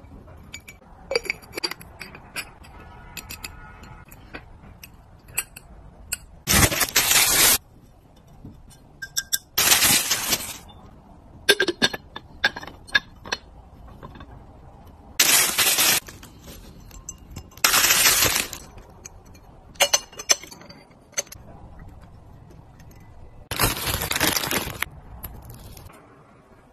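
Unboxing of ceramic and glass homeware: light clinks and taps of glass and ceramic being handled, broken by five loud bursts of crinkling packaging, about a second each.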